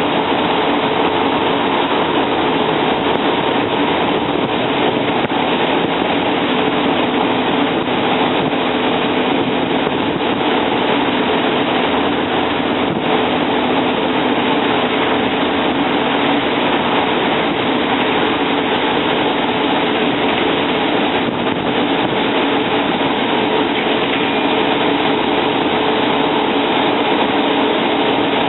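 Cummins L10 diesel engine of a Volvo Olympian double-decker bus running at a steady note while the bus travels, heard from inside the cabin with road noise and body rattle.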